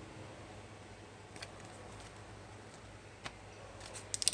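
A few faint sharp ticks and clicks of trading cards being handled, with a quick run of clicks near the end.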